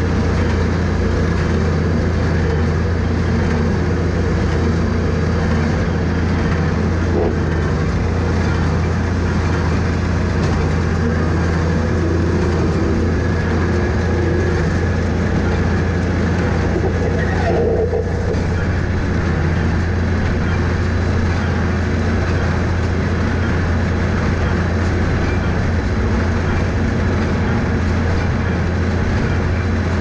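International small square baler running steadily behind a tractor, its pickup and baling mechanism taking in grass hay over the tractor engine's steady low hum.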